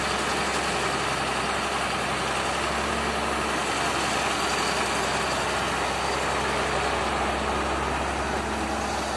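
Diesel engine of a Caterpillar wheeled excavator running steadily as it digs and swings a bucket of sand.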